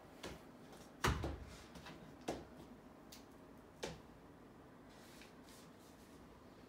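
A few light knocks and clicks from art materials being handled during wall painting, about four in all, the loudest about a second in, over a low background.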